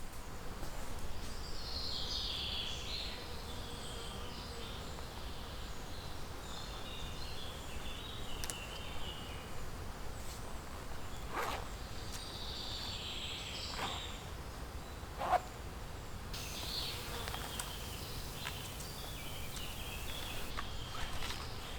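Outdoor ambience of birds chirping at intervals over a steady low background noise, with a few sharp knocks about halfway through.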